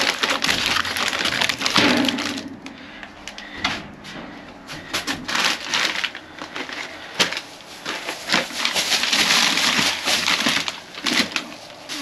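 Plastic snack wrappers and cardboard boxes rustling and crinkling as they are handled and piled up, with scattered clicks and knocks. It comes in bouts, busiest at the start and again in the last few seconds, with a quieter stretch in between.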